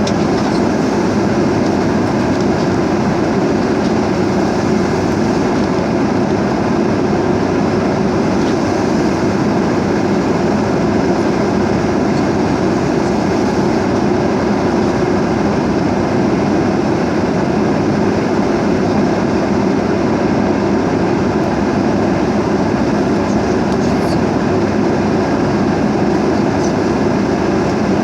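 Steady, loud roar of airplane cabin noise, with engine and airflow noise blending into an even rumble that does not change.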